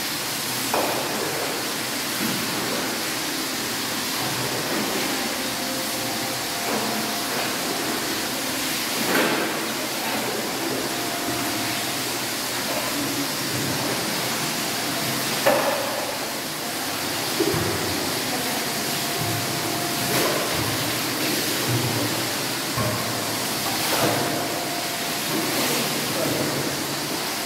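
Water running from a tap into a marble hammam basin, a steady hiss, with a few louder splashes as water is scooped and poured.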